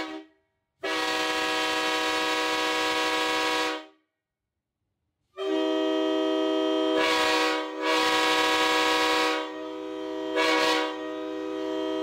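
Nathan AirChime K5L five-chime train horn in its rare Canadian tuning, blown on air: a steady chord blast of about three seconds, a short gap, a longer blast of about four seconds, then two short toots near the end.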